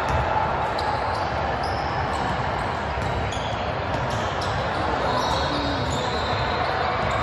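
Basketball game sound in a gym: a basketball bouncing on the court over a steady wash of background noise from the players and spectators in the large hall.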